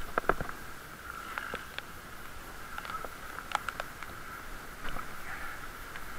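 Bicycle riding over wet paving: a steady hiss of tyres on the wet surface, with a quick cluster of rattling knocks at the start and scattered clicks and knocks from the bike jolting over the brick path.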